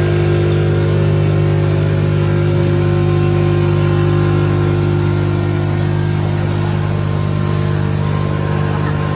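Snack food packing line running, with the vibratory feeder and bucket elevator in motion: a steady hum made of several fixed tones.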